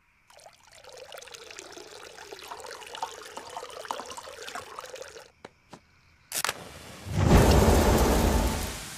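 Beer being poured out in a trickling stream for about five seconds, then a few sharp clicks, and a louder splash of liquid lasting about two seconds near the end.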